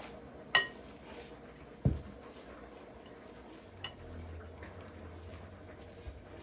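Hands kneading crumbly pastry dough in a glass mixing bowl. A sharp ringing clink comes about half a second in, a dull thump near two seconds and a lighter click near four seconds, as hands and bangles knock against the bowl.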